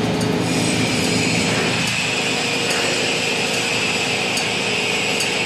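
Toshiba TMD-13 CNC vertical boring mill's rotary table turning under power, a steady machine running sound with a high whine that strengthens about half a second in.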